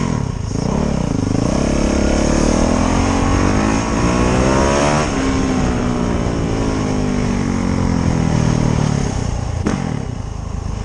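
Motorcycle engine running under way, its pitch climbing steadily for a few seconds to a peak about halfway through, then falling away as it slows.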